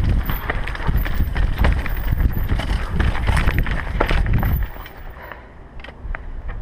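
Mountain bike rattling and clattering over a rocky trail descent, with many sharp knocks from the frame and chain and a low rumble of bumps and wind on the camera. About four and a half seconds in it drops to a quieter rattle with a few clicks.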